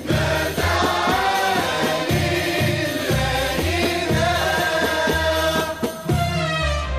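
Arabic devotional nasheed music in maqam Huzam between sung verses: voices holding wavering notes over a bass line, with regular percussion strokes.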